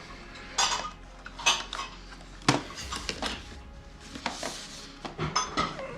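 Parts of a Roborock S8 robot vacuum being handled: a few separate knocks and clatters of hard pieces, with a short rustle a little past the middle.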